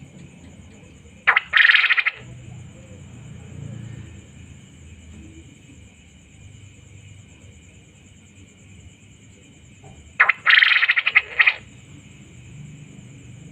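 Male quail calling twice, about nine seconds apart, each call a loud burst of fast pulses lasting about a second.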